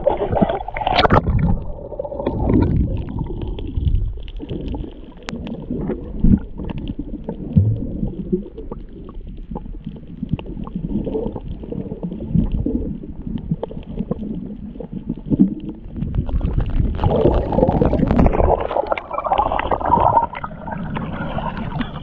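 Muffled water sloshing and gurgling around a GoPro action camera as it dips in and out of shallow sea water, with uneven splashes from a swimmer's hand strokes and a few sharp knocks.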